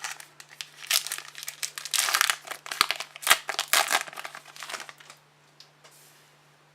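A trading card pack's wrapper being torn open and crinkled by hand, a run of sharp crackles for about five seconds that then stops.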